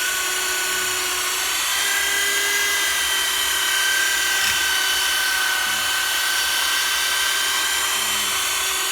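Power tool spinning a foam polishing pad against a plastic headlight lens to work in polish, a steady whine that rises slightly in pitch about two seconds in.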